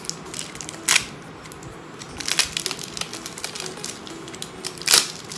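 Plastic wrapping crinkling and crackling as it is peeled off a small projector fog lamp by hand, in irregular rustles with sharp loud crackles about a second in and near the end.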